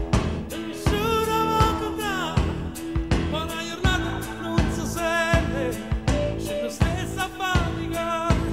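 Background music: a song with a singing voice over a steady drum beat.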